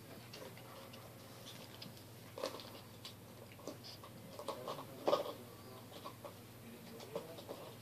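Maltese puppies at play, making a scattered string of short, fairly quiet puppy noises. The loudest comes about five seconds in.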